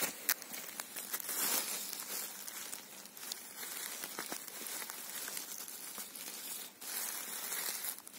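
Close rustling and crackling of dry leaf litter, twigs and grass as a hand reaches into the forest floor and grips a mushroom, with scattered small snaps.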